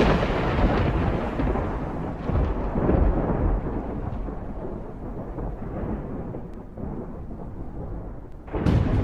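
Thunder rumbling and slowly dying away, with a few swells in the first seconds, then a new sharp clap of thunder breaking in near the end.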